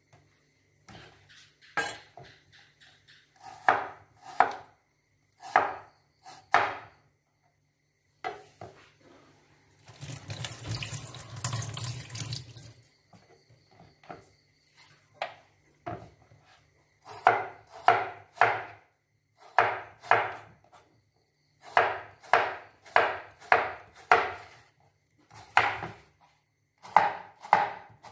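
Cleaver chopping squash on a plastic cutting board: scattered knife strikes at first, then steady runs of quick chops, about two a second, through the last ten seconds. About ten seconds in, a couple of seconds of running water from a tap.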